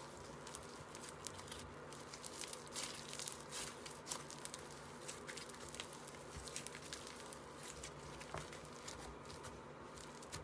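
Slime being squished and stretched by hand, with irregular small clicks and pops several times a second as air pockets in it burst.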